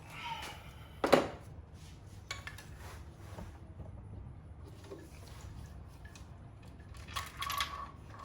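Metal engine parts clinking and knocking as they are handled: a sharp metallic knock about a second in, scattered light clicks, and a short run of clinks near the end, as the removed camshaft gears are set down and the timing chain is worked free.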